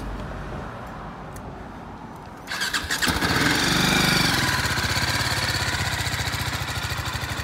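A 2018 BMW G 310 GS's single-cylinder engine is started about two and a half seconds in: a short whine from the electric starter, then the engine catches at once. It rises briefly, then settles to a steady, evenly pulsing idle.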